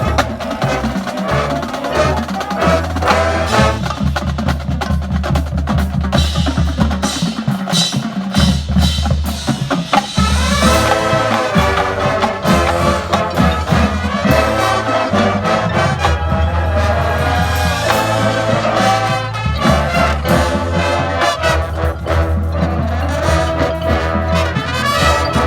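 Marching band playing: a busy percussion groove of drums and wood-block clicks, with the wind and brass section coming in on held notes about ten seconds in.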